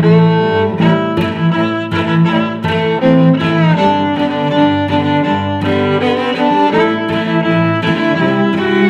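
Background music of bowed strings playing a moving melody.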